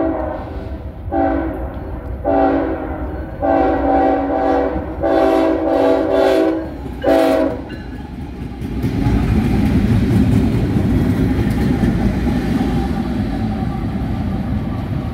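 Approaching freight train's diesel locomotive sounding its air horn, a chord of several notes, in about six blasts of uneven length, the longest near the middle. Then the lead BNSF locomotives pass close by with a loud, steady rumble of engines and wheels on the rails.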